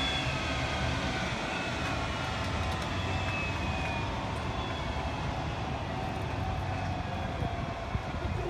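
Jet engines running: a steady rumble with high whining tones that slowly fall in pitch.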